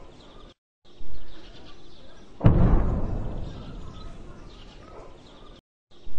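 Distant bomb explosions: a dull boom about a second in, then a louder, sharper blast about two and a half seconds in whose low rumble dies away over a couple of seconds. The sound cuts out briefly twice, and faint birdsong is heard.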